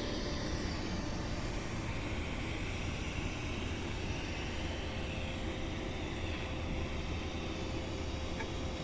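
Argon (TIG) welding: a steady, even hum and hiss with a faint constant tone.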